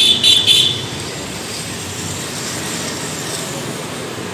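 A quick series of high-pitched beeps, about four a second, that stops less than a second in, followed by a steady background hum.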